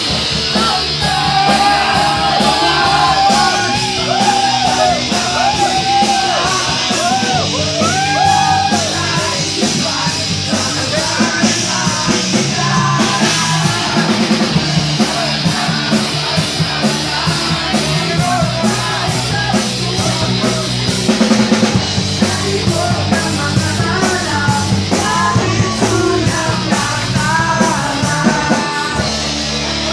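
Live rock band playing loud, with electric guitar and several voices singing and shouting into microphones over a steady driving beat.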